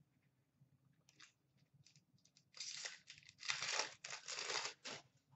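An Upper Deck SP Authentic hockey card pack's wrapper being torn open and crinkled: a few light rustles and clicks, then about two and a half seconds of tearing and crinkling in three bursts.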